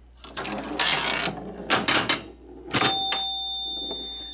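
1974 Gottlieb Out of Sight electromechanical pinball machine in play: a clatter of relays and switches for about two seconds, then a chime is struck and rings out slowly.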